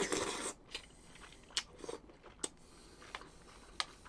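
A short slurp of ramen noodles right at the start, then chewing with scattered wet mouth clicks and smacks.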